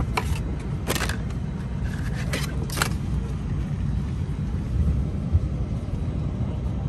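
Steady low cabin rumble of an Airbus A321 parked at the gate. In the first three seconds there are a few sharp clicks and knocks from the fold-down tray table and safety card being handled.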